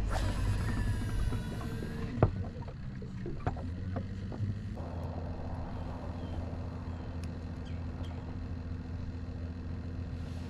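A cast with a fishing rod: the line whizzes off the reel for about two seconds, followed by a sharp click and a few light knocks in the boat. From about five seconds in, a steady low motor hum.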